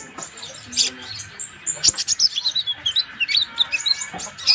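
Van Hasselt's sunbird (kolibri ninja) in full song: a rapid run of short, high chirps and twitters.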